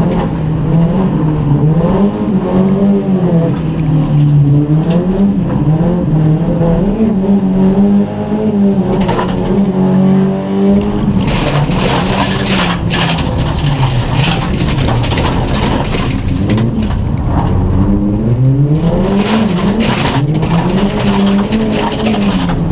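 Rallycross car engine heard from inside the cockpit at race pace, its pitch climbing and dropping repeatedly through gear changes and lifts. About halfway in, on the loose dirt section, a rattling hiss of gravel and grit striking the car's underbody joins it for several seconds.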